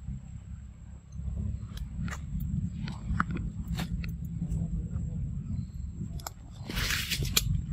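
Baby macaque chewing and biting into a ripe mango: scattered short eating clicks over a steady low rumble, with a brief rustling burst near the end.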